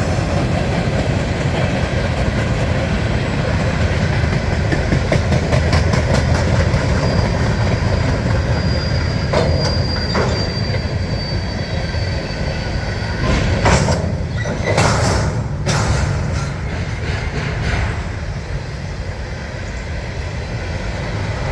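Norfolk Southern freight cars rolling past with a steady low rumble and clicking of wheels over rail joints. A thin, high wheel squeal rises about seven seconds in and fades after a few seconds, and a quick run of sharp clanks comes a little past the middle.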